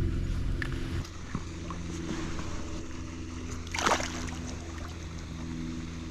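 Steady motor hum, likely from a boat, that drops noticeably in level about a second in and then runs on more quietly. There is a brief rushing noise near the middle.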